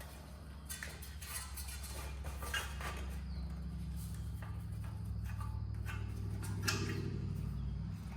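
Scattered light clicks and rustles of small parts and wiring being handled, over a steady low hum.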